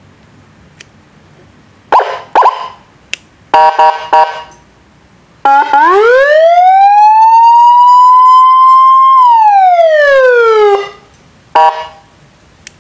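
Electronic 12-tone siren module sounding through a horn loudspeaker as it cycles through tones. First come two short chirps and a brief multi-tone blast. Then one long wail rises, holds and falls away, and two more short chirps follow.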